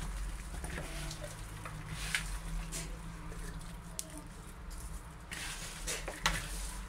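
Hands squelching and rubbing a spice marinade into raw chicken pieces in a plastic bowl: irregular wet squishes and light knocks against the bowl, over a low steady hum.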